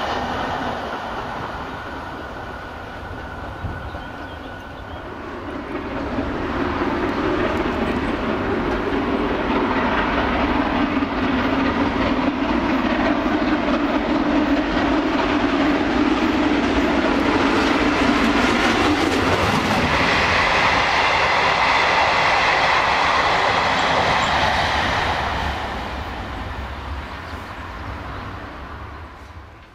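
Ex-GNR(I) V class three-cylinder compound 4-4-0 steam locomotive No. 85 'Merlin' approaching and passing at speed with its train. The sound dies down over the first few seconds, then swells to a long steady peak and fades away near the end.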